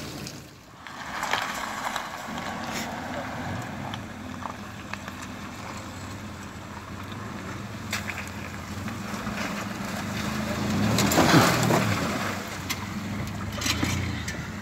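Mitsubishi Pajero II engine running steadily, then revving up to its loudest about eleven seconds in as the SUV drives off through the mud, and easing off near the end.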